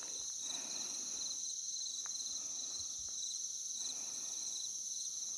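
Steady outdoor insect chorus: a continuous high-pitched ringing, with a second, pulsing song a little lower in pitch.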